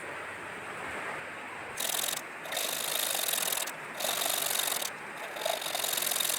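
A hand tool working wood in long, separate strokes: about four of them, each roughly a second long with short pauses between.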